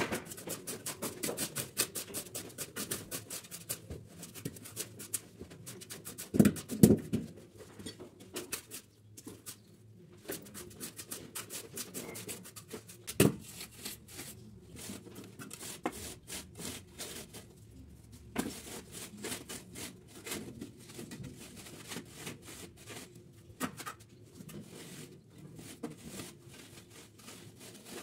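Trowel and straight wooden batten scraping and raking across a gritty sand-and-cement mortar bed as it is spread and screeded level, a long run of quick scratchy strokes. A few louder knocks stand out: a cluster about a quarter of the way in and one near the middle.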